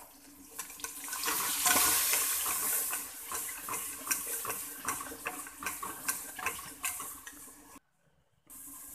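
Onions and freshly added chopped tomatoes sizzling in oil in a metal pot while a spoon stirs them, with many light clicks of the spoon against the pot. The sizzle is loudest about one to three seconds in, and the sound cuts out for about half a second near the end.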